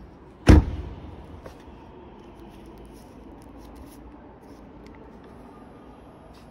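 Zeekr X car door being shut: one heavy thump about half a second in. Faint light clicks and rustling follow.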